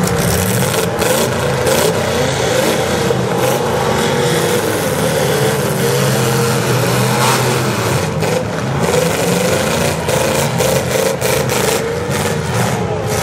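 Several demolition derby car engines revving up and down at once, with many short knocks and bangs.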